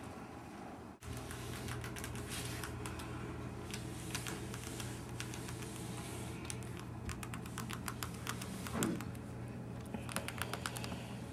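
Quick, irregular small clicks and scratches of a pet rat moving and rummaging about, with a short run of sharper clicks near the end and one soft thump a little before it, over a steady low hum.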